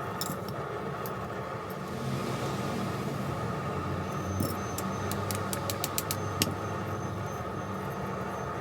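A steady low mechanical hum, with a soft hiss about two seconds in and a quick run of about eight sharp clicks near the middle.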